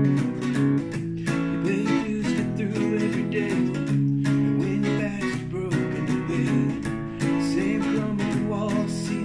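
Instrumental passage of a song, carried by a strummed acoustic guitar.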